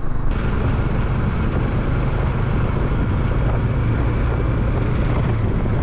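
Bajaj Dominar 400's single-cylinder engine running steadily at cruising speed, with wind and road noise.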